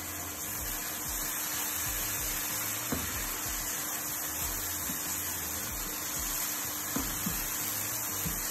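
Curry cooking in a pan with a steady hiss, stirred with a spatula that gives a couple of faint scrapes or taps about three and seven seconds in.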